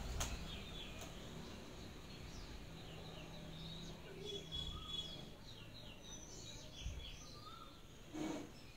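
Birds chirping and trilling faintly in a quick run of short calls through the middle, with a sharp clink just after the start and another about a second in, likely a steel spoon against a steel bowl.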